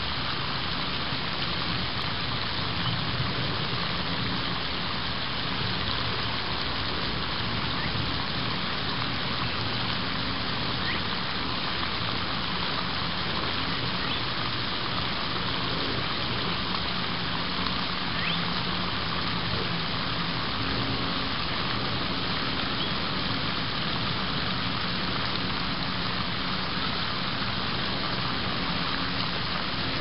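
Steady, even hiss of noise, with a few faint, short high chirps scattered through it.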